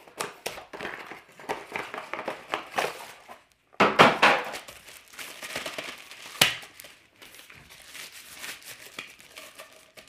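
Packaging crinkling and rustling as a vacuum accessory is pulled from its box and handled in its white protective sleeve. There is a louder burst of crinkling about four seconds in and a sharp click a little later, then quieter rustling.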